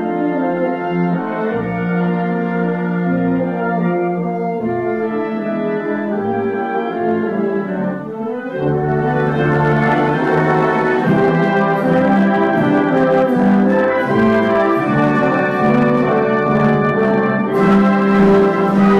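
Large wind band playing, brass to the fore in sustained chords. About nine seconds in the band swells louder and fuller, and lifts again near the end.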